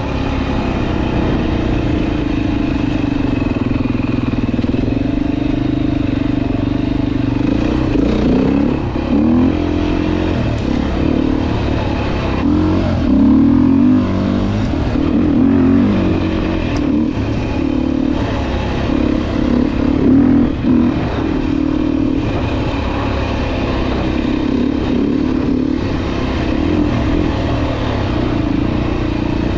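Dirt bike engine running continuously while riding, its pitch rising and falling with the throttle through the middle stretch, then steadier again.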